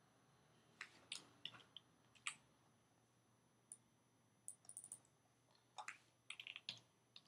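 Faint, scattered clicks of a computer mouse and keyboard, some single and some in quick little runs, as a shape is dragged, rotated and committed in Photoshop.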